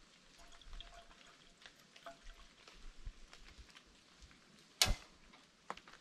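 Wood campfire crackling: scattered small pops and snaps, with one much louder pop about five seconds in.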